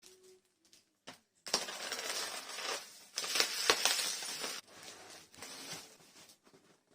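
Packaging being handled and torn open: crinkling and tearing in two long bursts with sharp snaps, then softer rustling.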